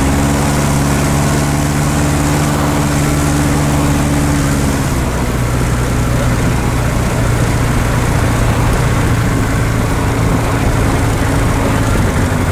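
Light aircraft's propeller engine running at low power, heard from inside the cockpit, during the landing rollout on a grass strip. The engine note changes about five seconds in, settling to a lower, plainer hum.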